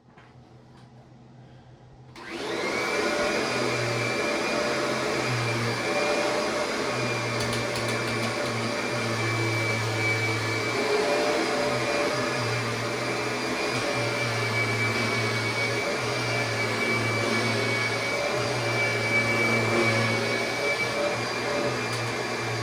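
Kirby upright vacuum cleaner switched on about two seconds in, spinning up and then running steadily with a high whine.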